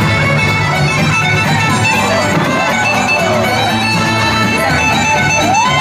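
Live Irish traditional band playing a tune: a set of pipes carries the melody over a steady drone, with string accompaniment.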